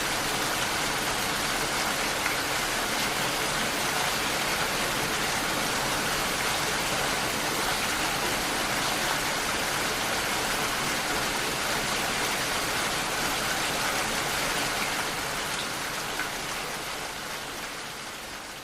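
Steady rain falling, a dense even hiss of many drops, fading down over the last few seconds.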